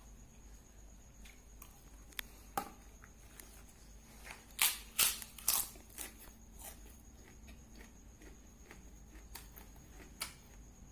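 Close-up chewing and crunching of crispy shrimp crackers (kerupuk udang): scattered small crunches, with a burst of three or four loud crunches a little before the middle.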